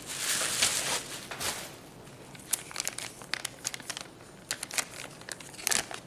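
Plastic packaging being handled: a dense rustling and crinkling of bubble wrap for the first second or so, then scattered sharp crinkles as a metallized anti-static bag is picked up.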